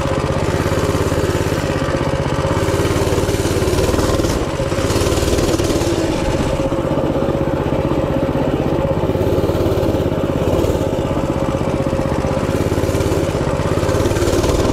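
Minibike's small engine running steadily under throttle while it is ridden, heard close up from the seat.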